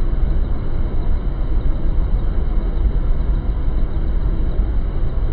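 Helicopter cabin noise: the engine and rotor running in flight, a loud, steady, deep rumble.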